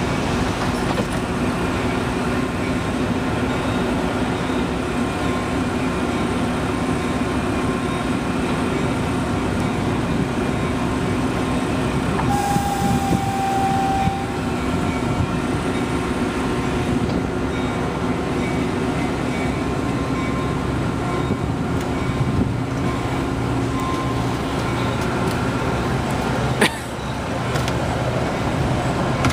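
Metra commuter train standing at a station platform with a steady mechanical hum. About twelve seconds in, a short steady tone sounds together with a burst of air hiss as the side doors close. Near the end a deeper rumble builds as the train starts to pull away, with one sharp clack.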